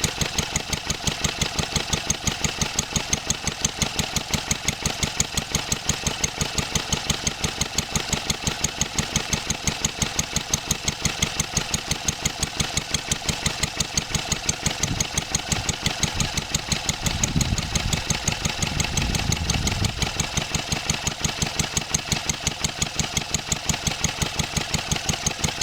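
1954 Wolseley WD8 single-cylinder stationary engine running steadily on its governor, an even, fast, regular firing beat.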